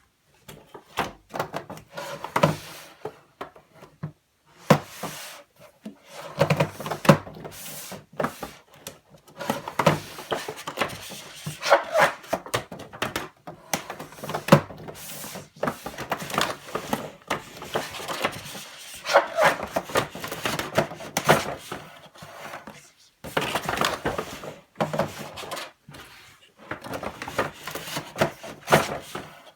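Hands unboxing a boxed diecast model car: irregular scraping, rubbing and knocking of cardboard and packaging, with short pauses.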